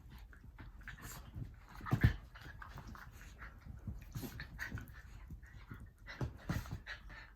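Miniature pinschers playfighting: panting, small whimpers and scuffling, with a sharp thump about two seconds in.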